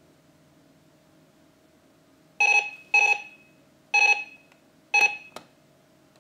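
Verbalise talking alarm clock's alarm going off at its set time: four short electronic beeps, two close together and then two about a second apart, followed by a single click about five seconds in.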